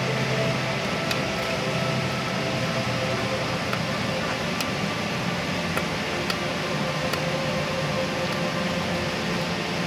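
Wood fire burning in the firebox of a Drolet Heatpro wood furnace, giving scattered sharp crackles and pops over a steady rushing hum.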